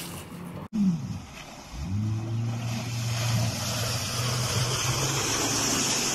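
Outboard motor running at high speed with a steady hiss of water spray and wind. Near the start the sound breaks off for an instant and the engine note falls; about two seconds in it climbs back up and holds steady.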